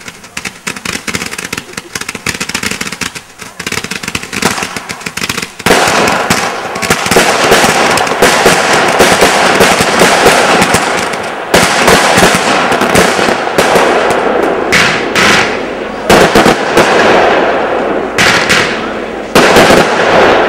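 Fireworks firing in rapid succession: a dense run of pops and crackling that becomes much louder about six seconds in.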